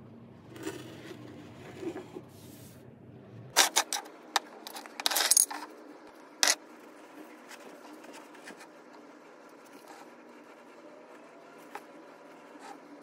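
A quick run of sharp clicks and clatters of hard plastic being handled on a workbench, about three and a half seconds in, with one more click about a second later.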